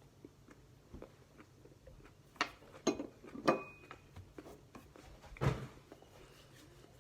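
A person biting into and chewing a raw Carolina Reaper pepper: a few sharp, crunchy bites between about two and a half and three and a half seconds in and another near five and a half seconds, with softer mouth clicks between.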